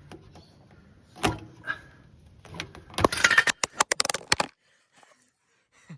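Hand tools knocking and clinking against metal on the underside of a car: two sharp knocks, then a quick run of loud metallic clicks and rattles about three seconds in that stops abruptly.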